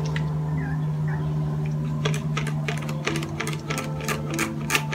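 Plastic trigger spray bottle of vinegar pumped over and over, a quick run of clicking spritzes about three or four a second, starting about two seconds in.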